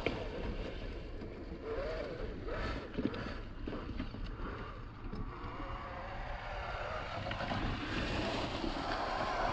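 Traxxas TRX-4 Defender RC crawler's electric motor and gears running, with short rises and falls in pitch as it is throttled, and wind noise on the microphone.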